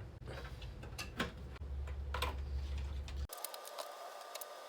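Scattered small clicks and taps of PC components being handled as parts are removed from a motherboard: connectors, plastic clips and cards knocking. Partway through, the steady low background hum cuts out abruptly.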